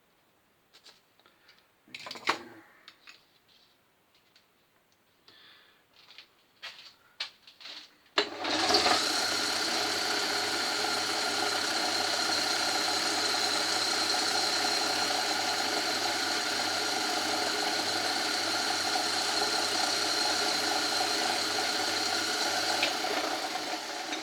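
An old Myford lathe switched on about eight seconds in and running steadily, its motor humming while it takes a light cut of about twenty thousandths off a bush. It starts to run down at the very end. Before it starts there are a few light clicks and knocks of tools being handled.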